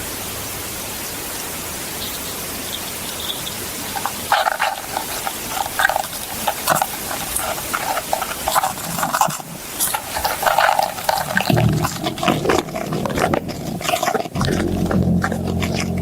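A field recording of a strange humming sound, which the presenters link to Bigfoot. A steady hiss comes first. About four seconds in, a long run of short, rapid pulsing hums begins, and near the end a steady low-pitched hum sets in.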